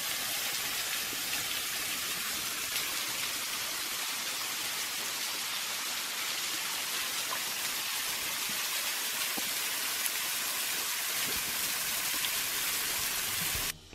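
Small waterfall splashing: thin streams of water falling onto rocks and into a shallow pool, a steady hiss that cuts off abruptly near the end.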